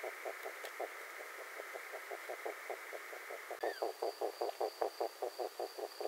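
Rhythmic pulsing animal calls at night, about six pulses a second, running on without a break. About three and a half seconds in, a brief falling squeak is heard and a thin, steady high-pitched whine starts up and carries on.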